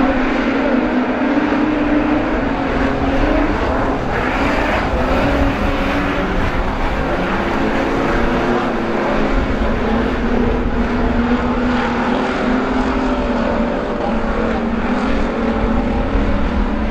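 A pack of street stock cars racing on a dirt speedway, several engines running hard together. Their pitch rises and falls as the cars power through the turns.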